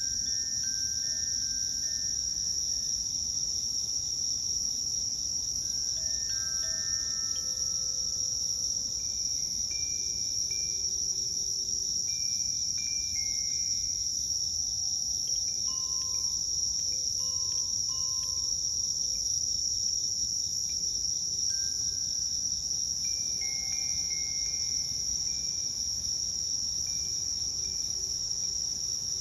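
Steady high-pitched chorus of crickets trilling without a break, the loudest sound throughout. Over it, soft scattered notes of a Koshi Terra wind chime ring out at several pitches and fade.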